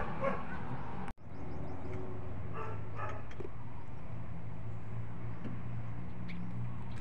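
A few short calls from a dog over a steady low hum, with a brief dropout about a second in.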